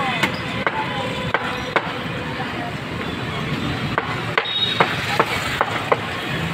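Butcher's knife chopping through a dressed whole chicken on a wooden chopping block, sharp irregular knocks. There are four strokes in the first two seconds, then a quicker run of about six near the end, over steady street-market noise.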